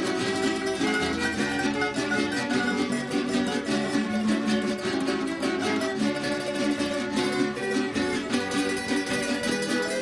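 A Venezuelan estudiantina string ensemble playing a waltz, with bandolas and guitars plucking and a violin among them, without a break.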